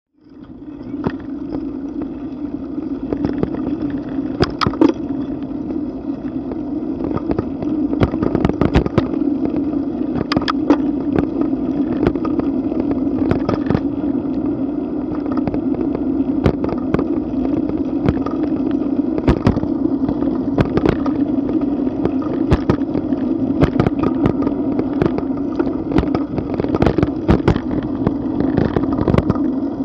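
Wind and road noise on a bicycle-mounted camera while riding: a steady low hum with frequent sharp knocks and rattles, about several a second at times, from bumps in the road surface.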